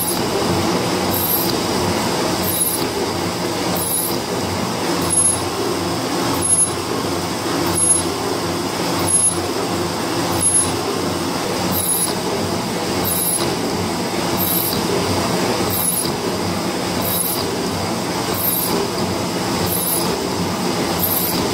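Cincinnati metal shaper running under a cut: a steady machine hum with the ram stroking back and forth about once every 1.3 seconds, and a louder burst on each stroke. It is taking a heavy cut, hot enough to turn the chips blue.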